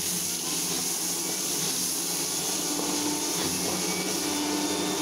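Chopped tomatoes and onions sizzling steadily in hot oil in a kadai as they are stirred, over a low steady hum.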